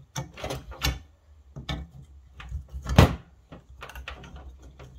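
Irregular metal clicks and knocks from a screwdriver working on a fuel pump and sender assembly, the metal hanger knocking on the bench. The loudest knock comes about three seconds in.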